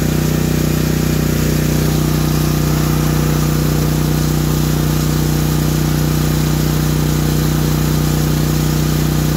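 Generac MegaForce 6500 portable generator's engine running at a steady governed speed under the load of an electric garage heater, an even hum that holds the same pitch throughout.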